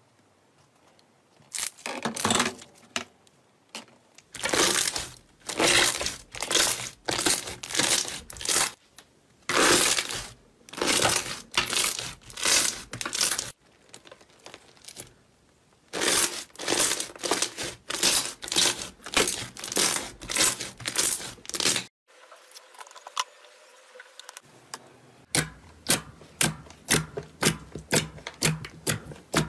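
Hands working slime: pressed through a wire cooling rack, then thick white slime pulled and stretched, then glossy gold slime pressed and poked with the fingertips. Each press or pull gives a short noisy burst, about one to two a second; near the end the fingertip pokes come as quick sharp pops, several a second.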